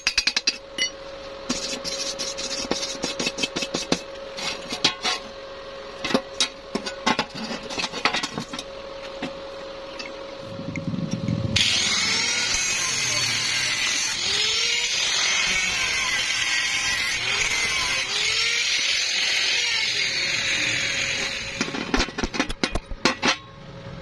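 Stick (arc) welding on a steel door hinge for about the first eleven seconds, the arc crackling irregularly over a steady hum. Then an angle grinder grinds the steel weld for about ten seconds, a loud whine whose pitch rises and falls as it bites, followed near the end by a few sharp knocks.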